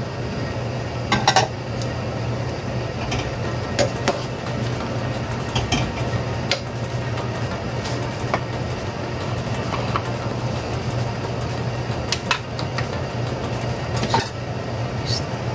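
A pot of soup simmering on a gas stove, with scattered light clinks and ticks over a steady low hum. The clinks in the first seconds are a metal ladle knocking against the pot as it pushes sliced carrots into the broth.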